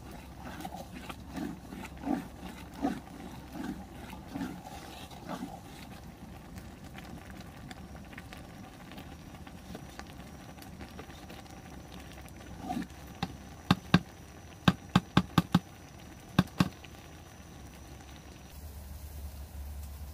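A bamboo stick stirring thick corn mash in a large metal pot, with rhythmic scraping strokes about every three-quarters of a second for the first few seconds. Later comes a quick run of about nine sharp knocks.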